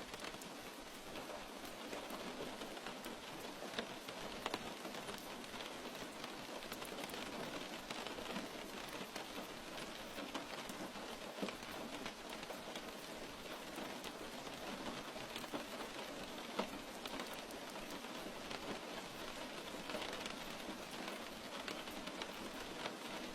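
Steady rain falling, an even hiss of rain on surfaces with scattered sharper drop hits.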